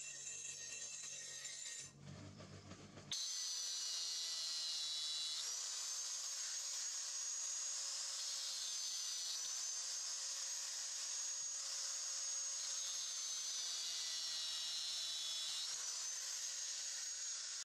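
An angle grinder with a thin disc runs steadily against a steel guard plate, giving a high whine over a grinding hiss, with its pitch shifting slightly a couple of times. For the first two seconds, a bench grinder's wheel is heard working the blade instead.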